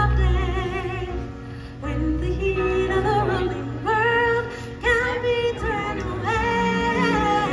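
Amplified live stage music: a woman singing long, wavering notes over a backing with a deep bass.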